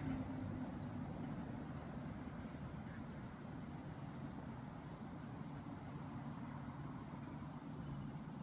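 Steady low hum of distant road traffic, with three faint short bird chirps.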